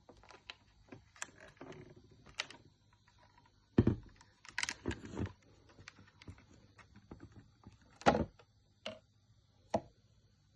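Scattered clicks and knocks of objects being handled, with louder thumps about four seconds in, a short cluster just after, and single knocks near the end.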